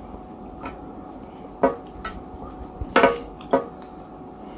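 Plastic spoon scraping and tapping against a plate while scooping up rice, a handful of short clicks with the two loudest about a second and a half in and about three seconds in.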